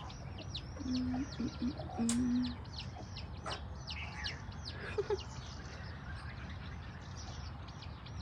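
Chicks peeping rapidly and continuously, with a hen giving a few short low clucks about one and two seconds in.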